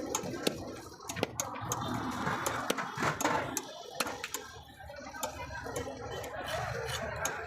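Irregular sharp knocks and clicks of a knife cutting a rohu fish, about one or two a second, over a steady background noise.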